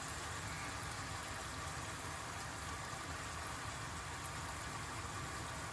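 Steady, gentle sizzle of garlic, anchovies, chilies and Kalamata olives frying in oil in a pan.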